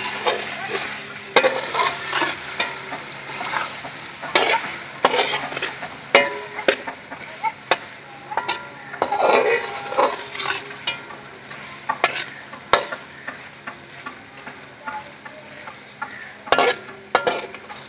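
Chicken pieces and spice masala sizzling in an aluminium pot while a slotted metal spatula stirs and scrapes, with repeated irregular knocks of the spatula against the pot. The sound is the frying (bhuna) stage of the masala before water goes in.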